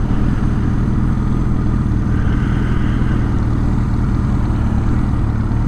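1983 Suzuki GS1100E's air-cooled inline-four engine running steadily under way, at an even pitch and level.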